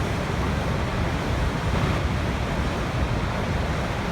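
Waterfall: a steady, unbroken rush of falling water, deepest in the low end.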